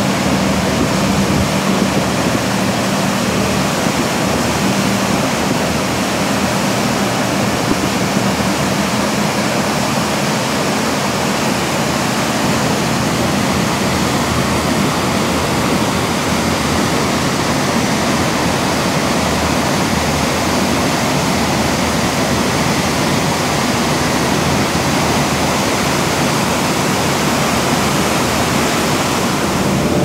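Large waterfall pouring over rocks into a fjord, a steady, loud rushing of falling water.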